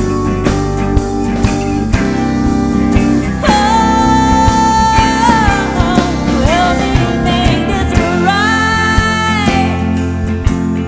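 An alt-country band playing, with guitars and a steady drum beat, and a voice singing two long lines.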